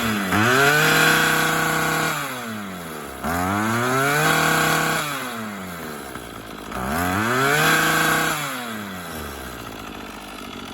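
Craftsman/MTD 25cc two-stroke string trimmer engine revved up three times, each time holding briefly at high speed and then dropping back to idle. It runs and takes throttle after its carburetor was cleaned and set. The owner says a slight stumble is still there, to be tuned out between the low and high mixture screws.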